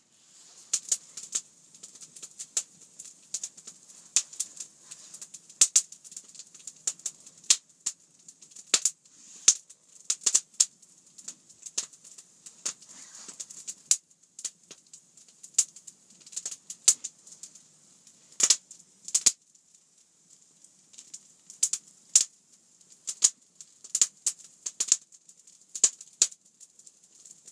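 Open wood fire crackling, with irregular sharp pops and snaps over a faint hiss.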